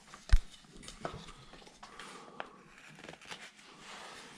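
A V-tool cutting separation lines into a small wooden figure: soft scraping with scattered small clicks, and one sharp knock about a third of a second in.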